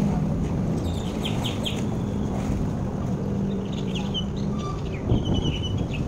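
Small birds chirping in short high calls, a cluster about a second in and another around four to five seconds, over a steady low rumble of wind on the microphone. A faint steady low hum stops about four and a half seconds in.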